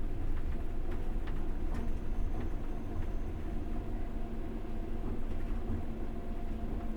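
Passenger train carriage running along the track, heard from inside the carriage: a steady low rumble with a few faint clicks in the first half.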